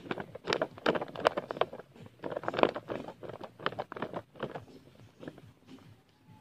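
Dry leaves and undergrowth rustling and crackling in irregular, quick snaps, busiest in the first four seconds and thinning out after about five seconds.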